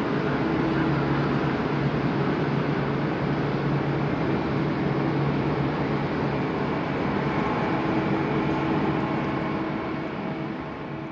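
Airbus A350-900's Rolls-Royce Trent XWB turbofans at climb thrust: a steady jet-engine rush with a low hum running under it, starting to fade near the end.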